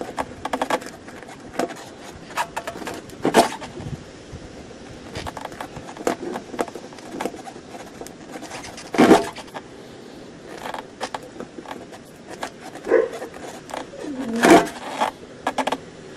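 Irregular scraping and rubbing close to the microphone, with louder scuffs about three, nine and fourteen seconds in: something in contact with the recording phone, handling noise rather than the repair work.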